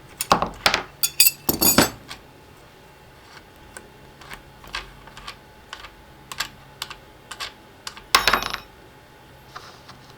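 Metal clinks and clicks from tools and collet parts handled while a router's collet is changed. There is a quick run of sharp clinks with a short metallic ring early on, light scattered ticks, then another loud cluster of clinks about eight seconds in.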